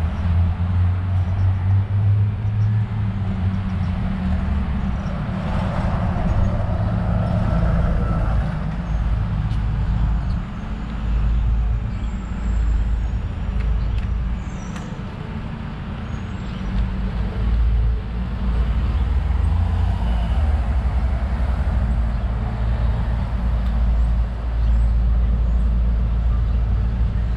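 City street traffic: a continuous low rumble of passing vehicles, with a louder vehicle going by about six to eight seconds in and another swell near twenty seconds.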